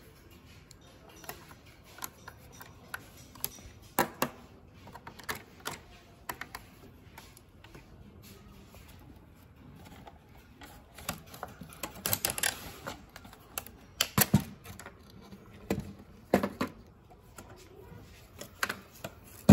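Irregular clicks, taps and knocks of a small screwdriver and the plastic housing and parts of an old VHS camcorder being handled and taken apart, with a few louder clattering knocks in the second half.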